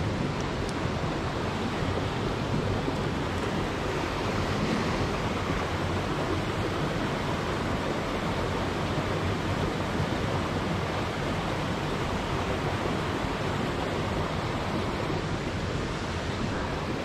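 Mountain stream water rushing steadily over rocks, an even wash of noise with no breaks.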